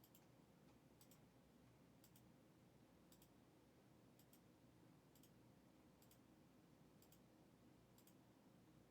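Near silence, with faint, evenly spaced double ticks about once a second, like a clock ticking.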